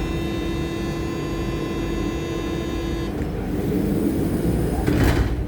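A steady, even-pitched buzzing hum aboard an MI2N double-deck electric train, the odd 'ronfleur' sound; it cuts out about three seconds in, leaving the train's low rumble, and a short rush of noise comes near the end.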